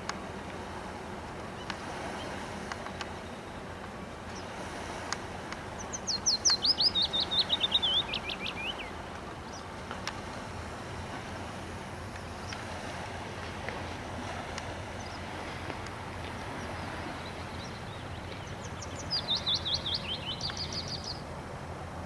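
A songbird sings two phrases, each a quick run of notes falling in pitch over two to three seconds: one about six seconds in and one near the end. Under it runs a steady low background rumble.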